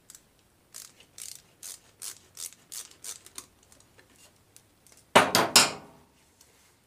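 Light clicking of hand tools and metal parts at a small dirt bike's carburetor, two or three clicks a second, as a dried-out, stuck rubber boot is worked loose. A little after five seconds in there is one much louder clatter lasting about half a second.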